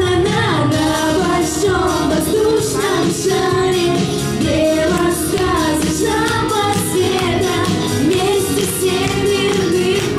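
Female vocal trio singing a pop song into microphones, over backing music with a steady beat.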